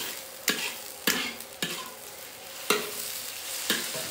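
Food sizzling in a hot wok as it is stir-fried, with a steady hiss and five sharp knocks of the spatula against the pan at uneven intervals.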